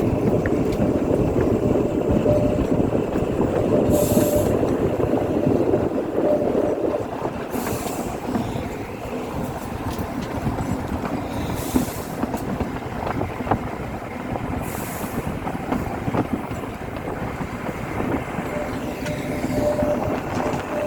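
Narrow-gauge Kalka–Shimla toy train running: a steady rumble of wheels on the track, with a faint high wheel squeal coming and going and brief hissing rushes every three to four seconds.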